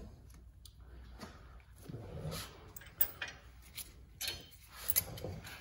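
Light clicks and scrapes of brake pads and caliper hardware being handled and fitted by hand, with a few sharp clicks, the loudest about three and five seconds in.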